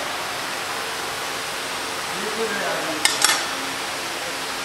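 Steady workshop air noise with two quick metallic clinks about three seconds in, a hand tool knocking against the motorcycle's front-wheel hub parts.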